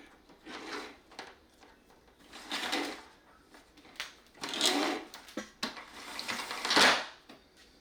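The Kenmore BC7005 canister vacuum's cord reel rewinding the power cord in four short whirring spurts, with a few sharp clicks between them.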